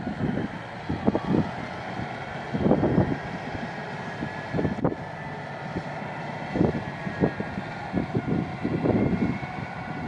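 Caterpillar D9 bulldozer's diesel engine running at a distance as it pushes soil, a steady mechanical hum. Gusts of wind buffet the microphone in irregular low rumbles that are the loudest thing heard.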